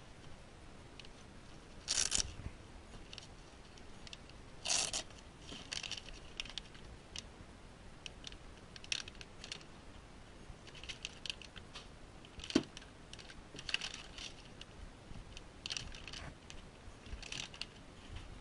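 Clear plastic bags of scanner cables crinkling and rustling as they are handled in a hard plastic carrying case, in short scattered bursts, with a sharp click about two-thirds of the way through.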